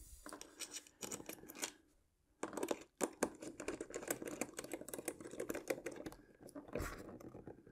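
Faint, irregular small clicks and rustling of hands and a screwdriver as screws are driven to fasten the landing gear to a foam RC model airplane, with a brief pause just before two seconds in.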